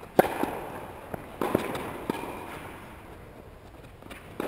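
Tennis balls struck by racquets and bouncing on the court: a series of sharp pops, the loudest about a quarter second in, a cluster a little past a second in, and another near the end, each trailing off in an echo.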